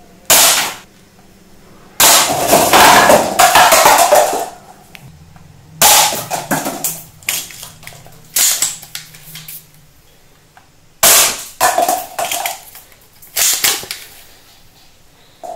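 Toy AWM sniper rifle firing plastic ball bullets: five sharp shots a few seconds apart. Each shot is followed by the light clatter of paper cups being knocked off a stack, and the longest clatter comes after the second shot.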